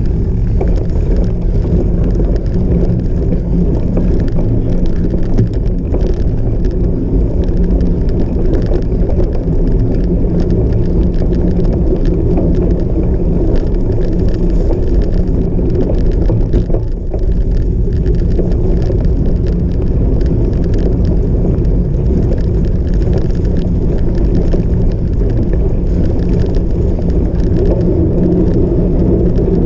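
Cyclocross bike being raced off-road: a loud, steady low rush with many small rattles and clicks from the bike over rough ground, easing briefly about two-thirds of the way through.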